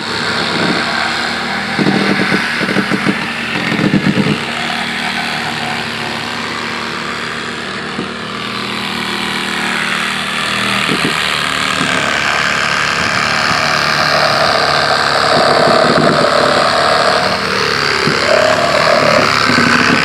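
Engine of heavy demolition equipment running steadily, with a stretch of rapid rattling pulses about two to four seconds in.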